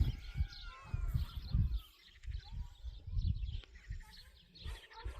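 Small birds chirping busily in quick overlapping calls, over irregular low rumbling gusts.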